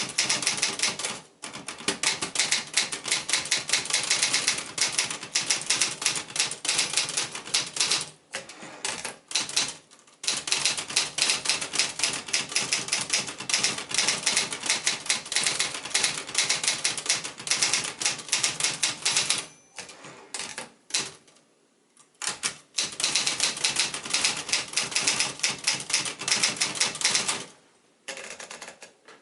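1967 Olivetti-Underwood 21 manual portable typewriter being typed on: long runs of rapid key strikes, broken by a few short pauses, stopping shortly before the end.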